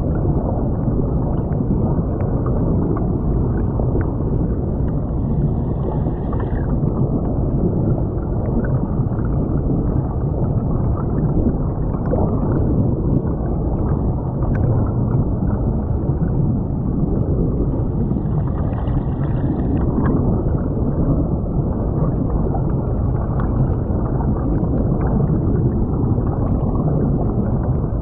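Creek water flowing and gurgling around a camera lying underwater on the creek bed: a steady, muffled rushing noise with little treble.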